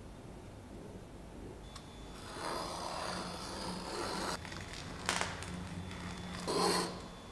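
A knife scoring a thin sheet of wood veneer along a metal straightedge: a dry scraping stroke lasting about two seconds. Then a sharp click, and a brief rustle as the cut veneer strip is lifted away.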